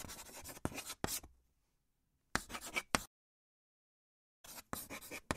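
Marker pen scribbling on a board in three short spells, scratchy strokes broken by small sharp ticks.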